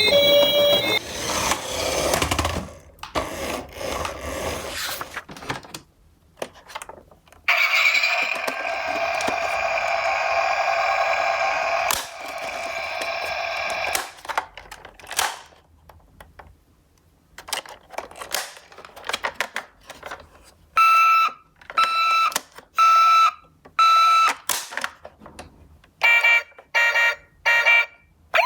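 Toy ambulance minicars' electronic sirens sounding one after another: a long warbling siren tone, then beeping about once a second near the end, with clicks and knocks in between.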